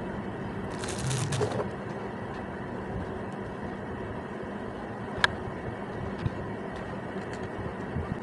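Handling noise of the plastic parts of a vlogging kit's grip stand being fitted together: a brief rustling scrape about a second in and a sharp click a little past the middle, with a few fainter clicks, over a steady background hiss and hum.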